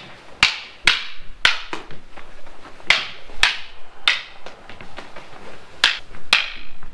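Kali sticks striking during full-contact sparring: about nine sharp cracks at irregular spacing, each with a brief ring, with a pause of almost two seconds near the middle.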